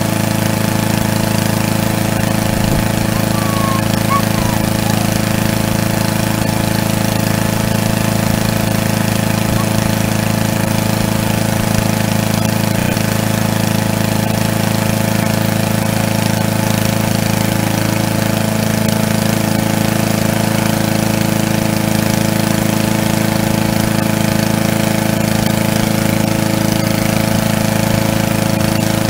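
Walk-behind gasoline lawn mower engine running steadily at a constant speed while the mower stands still, not cutting.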